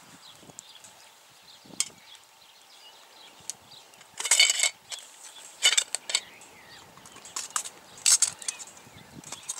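Bursts of rustling and a few sharp clicks from food and packaging being handled. The longest rustle comes about halfway through, with shorter ones after.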